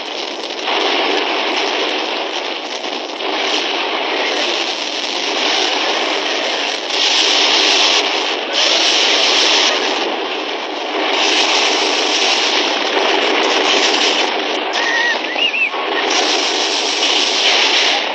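Battle din on an old, narrow-range film soundtrack: galloping cavalry and gunfire blend into a dense, continuous rush of noise that swells and dips.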